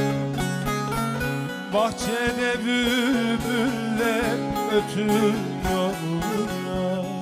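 Two bağlamas (long-necked Turkish saz lutes) playing a folk tune with quick, steady plucked strokes. Through the middle a wavering, ornamented melody line bends up and down over the strumming.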